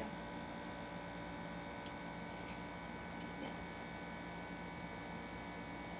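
Steady background electrical hum made of several held tones, with a few faint ticks in the middle.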